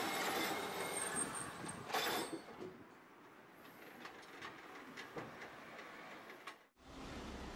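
Tosaden streetcar rolling past at close range, its steel wheels rumbling and clicking on the street track, with one sharp clank about two seconds in; the sound fades as the car moves away, then breaks off to a steady low hum near the end.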